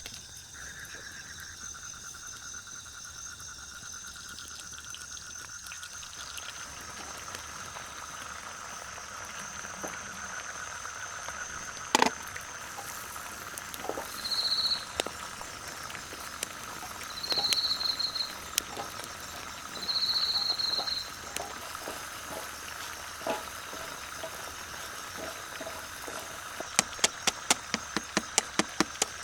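Night chorus of frogs and insects: a steady high trilling throughout. Three short, higher calls come in the middle, and a quick run of sharp clicks comes near the end.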